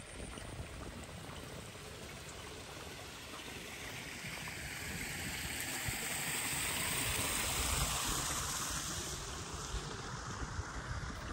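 Rushing water, an even hiss that swells to its loudest about seven or eight seconds in and then fades away.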